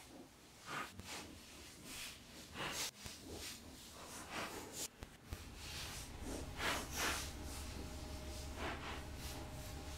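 Faint, irregular soft rustles and swishes of hands working thin copper wire over a paper template, with a low hum coming in about halfway.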